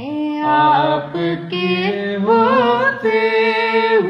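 A boy singing a naat in Urdu, drawing out long notes that waver and bend in pitch.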